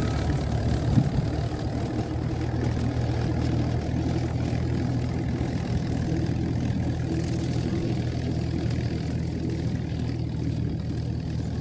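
Farm tractor engine running steadily while it drives a bush hog (rotary cutter) through dry grass, getting slightly quieter as it moves away.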